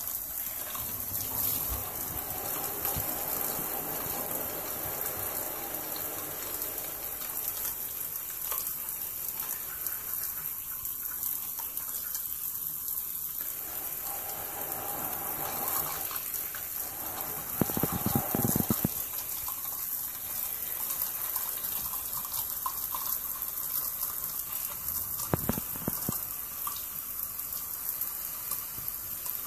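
Shower spray running onto wet boots and the tub floor, a steady hiss of falling water. A louder spell of splashing comes about two-thirds of the way through, with another brief one near the end.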